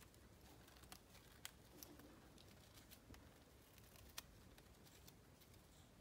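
Faint, scattered light clicks and ticks from a budgie shifting and preening on a hanging wooden-perch swing in its cage, the two sharpest about a second and a half and four seconds in, over a low room hum.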